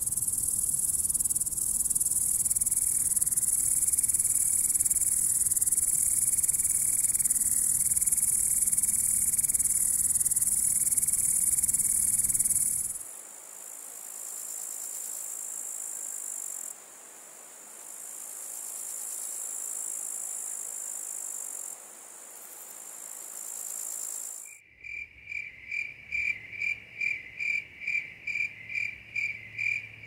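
Three grasshopper-type insect songs one after another. First comes a loud, continuous high-pitched buzz, which cuts off about 13 seconds in. A fainter, steady high buzz follows, and near the end an even series of chirps, about three a second.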